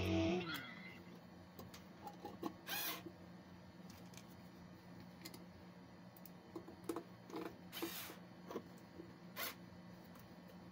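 Faint handling noise as gloved hands fit a single-pole wall switch and its wires into a steel box: scattered small clicks and a few short scrapes, over a low steady hum.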